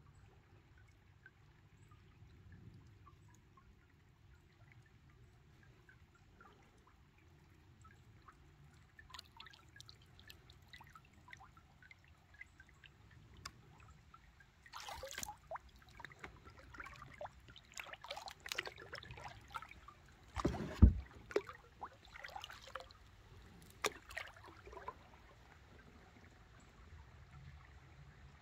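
Kayak paddle strokes in slow creek water: faint at first, then from about a third of the way in, scattered splashes and drips as the blade dips and lifts. Around three-quarters of the way through there is one sharp thump, the loudest sound.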